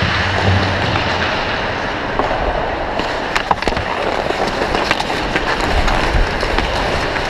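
Hockey skates scraping and carving on rink ice, heard as a steady rushing hiss from a camera worn by the skating player, with several sharp clacks around the middle.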